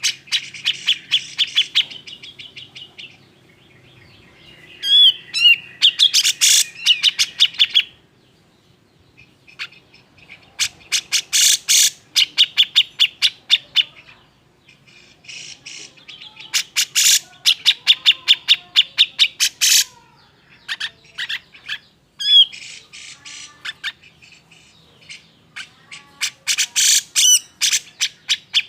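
Cucak jenggot (grey-cheeked bulbul) in an agitated state, calling in bursts of fast, harsh repeated notes with a few short whistled glides between them.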